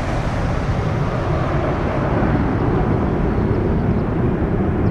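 Airbus A320 airliner's twin jet engines at full power as it climbs away just after takeoff: a steady rumble whose higher hiss fades as the aircraft draws away.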